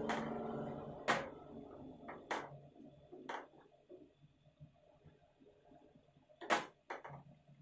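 Wooden spatula knocking and scraping against a nonstick frying pan while stirring thick, simmering raw mango chutney: sharp knocks about once a second for the first few seconds, then a pause and two more close together near the end.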